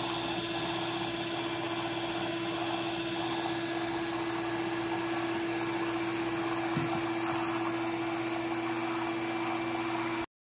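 Electric stand mixer's motor running steadily at one speed, its beaters whisking cake batter. The steady hum cuts off suddenly near the end.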